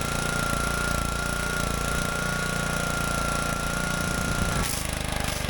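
Craftsman pressure washer's Honda single-cylinder four-stroke engine running steadily after a carburetor cleaning, with a thin steady whine that stops about four and a half seconds in.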